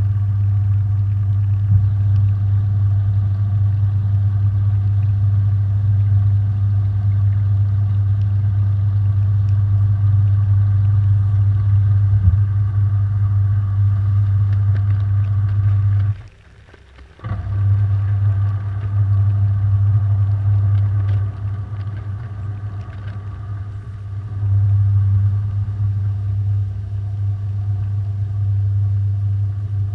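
Washing machine running its wash cycle, heard from inside the drum: a loud, steady motor hum that stops for about a second midway, as the drum pauses between turns, then starts again.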